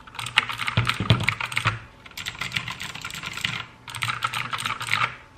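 Fast typing on a Royal Kludge RK61 60% mechanical keyboard with clicky blue switches, in three quick runs of keystrokes with short pauses between them.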